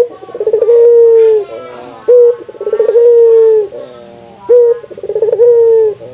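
Puter dove (collared dove) cooing: three loud phrases about two seconds apart, each a short note followed by a rolling coo drawn out into a long steady note that dips at the end.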